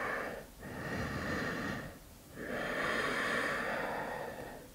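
A woman's Ujjayi yoga breathing: slow, audible breaths through a narrowed throat, a brief one at the start, another about a second in, and a longer one from about halfway through.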